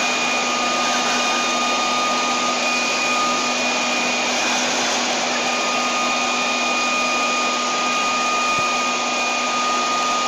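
Leaf blower running steadily at full power: an even rush of air with a constant whining hum over it.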